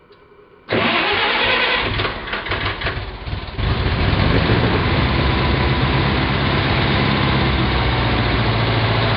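Engine of a Davey MC1A high-pressure compressor started cold on choke at half throttle: it starts suddenly about a second in, runs unevenly for a few seconds, then settles into a steady run.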